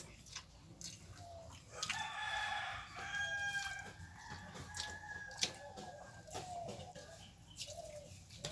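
A rooster crowing: one long drawn-out crow that starts about two seconds in and fades out some four seconds later.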